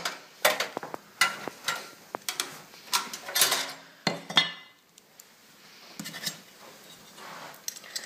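Clicks and clatter of a plastic expansion-slot panel and a screwdriver knocking against a steel PC case as the panel is fitted back on. There is a quick run of knocks over the first half, then only a few scattered clicks.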